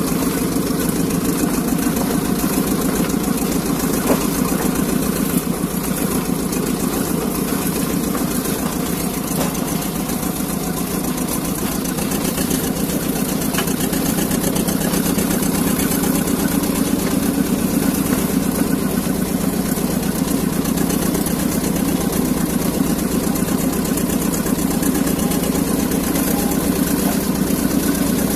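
Engine of a small narrow-gauge locomotive running steadily with a rapid, even beat as the locomotive travels along the track, heard close up from the driving position.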